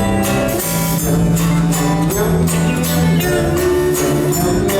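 Live band playing an instrumental passage between sung verses: sustained instrument notes over a steady percussion beat of about two to three strokes a second.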